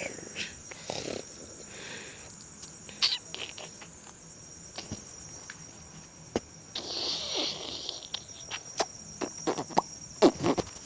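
Crickets trilling steadily in a high, unbroken tone, with scattered sharp clicks and rustles close by.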